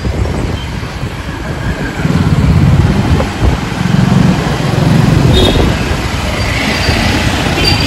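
Street traffic noise with a heavy low rumble that grows louder about two seconds in.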